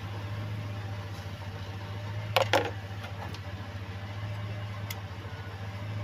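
Steady low mechanical hum like an idling engine, with two quick sharp knocks about two and a half seconds in and a faint tick near the end.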